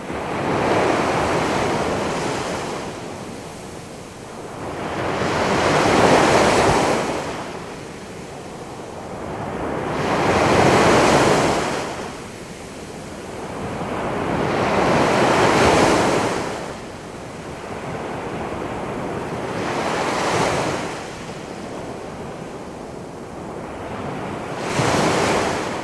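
Big ocean waves rolling in and crashing as surf, in repeated swells: a surge of rushing noise builds and breaks about every four to five seconds, six times in all, then washes back.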